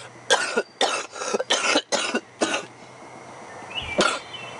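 A person coughing in a quick run of about eight harsh coughs, then a pause and one more cough near the end.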